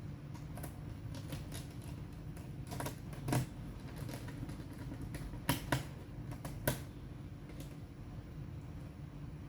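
Scattered light clicks and taps from handling a laptop, a few sharper ones about two-thirds of the way in, over a steady low hum.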